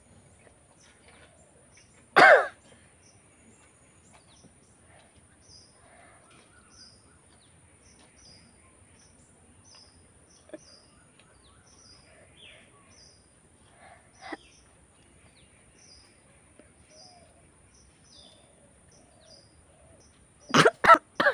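A woman's sharp bursts of breath through the nose, sniffs and stifled attempts at a sneeze: one loud one about two seconds in, faint ones midway, and three quick loud ones near the end, as she tickles the inside of her nose with a spiky pineapple leaf. A bird chirps over and over, a little more than once a second.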